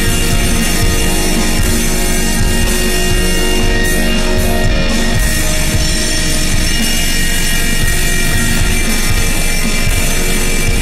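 Psychedelic black metal music: a dense, steady wall of sustained chords with fast drumming underneath.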